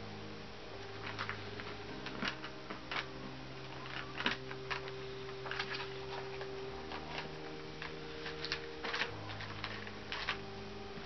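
Scattered crunchy clicks and crackles of someone eating a nut-and-raisin snack mix with cinnamon honey almonds. Under them runs a faint steady drone of low tones that shifts in pitch a few times.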